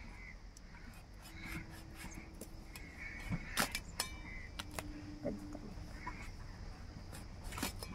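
A few sharp clicks and scrapes as the ridges of a ridge gourd are shaved off against a fixed kitchen blade. Birds call faintly in the background, and a faint steady hum sounds twice.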